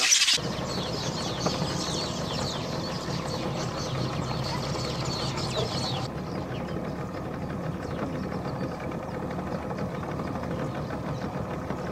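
A small tour boat's motor running steadily, with birds chirping densely over it until about six seconds in, when the chirping stops abruptly.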